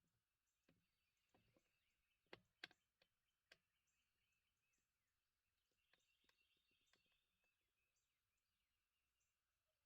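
Near silence in woods before dawn: faint, scattered bird chirps, with a few soft clicks or ticks about two to three and a half seconds in.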